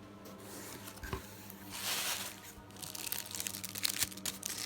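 Packaging being handled as a box is unpacked: a soft knock about a second in, a brief swish, then rapid crinkling and crackling of wrapping that grows busier near the end.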